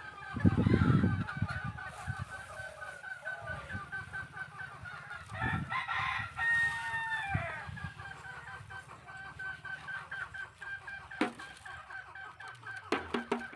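Domestic chickens clucking continually, with a rooster crowing about six seconds in. A short low rumble sounds about half a second in, and a couple of sharp knocks near the end.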